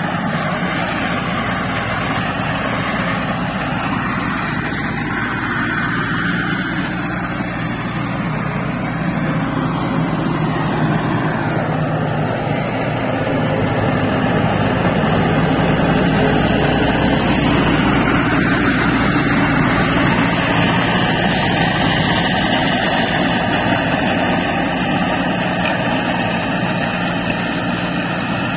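Scag Turf Tiger zero-turn mower with a Caterpillar diesel engine, running steadily under load with the deck blades spinning as it cuts thick, tall grass. The sound grows louder from about the middle of the stretch as the mower comes close, then eases off a little near the end.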